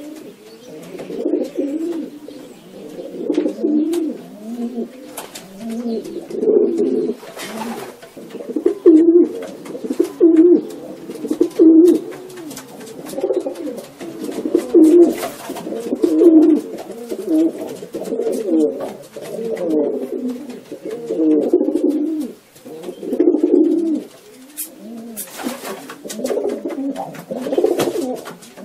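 A flock of domestic fancy pigeons cooing, several birds at once in overlapping, repeated low coos with no break. A few brief clicks or knocks sound over them.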